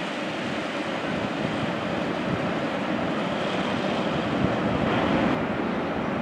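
Freight train of tank wagons rolling along the track, a steady rushing rumble of wheels on rail. The sound changes abruptly about five seconds in, losing its hiss.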